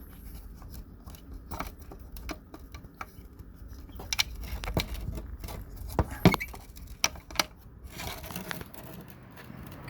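Scattered clicks, taps and rattles of hands working the plastic high-mount brake light housing and its bulb socket, with the sharpest knocks about six seconds in.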